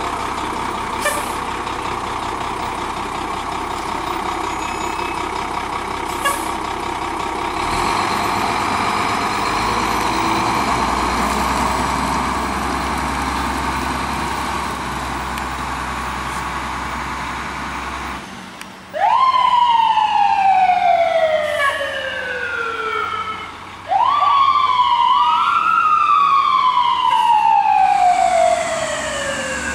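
Fire engine's diesel engine running steadily as the pumper pulls away, then its siren is sounded twice, after about 19 and 24 seconds: each time it rises quickly and then falls slowly in pitch, and the second time it rises, dips and rises again before falling. The siren is the loudest thing.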